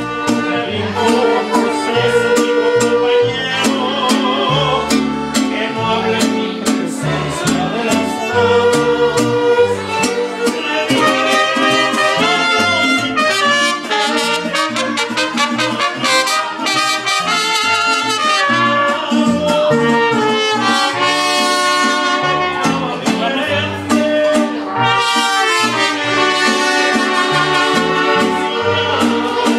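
Latin music with trumpets and trombones playing over a steady beat.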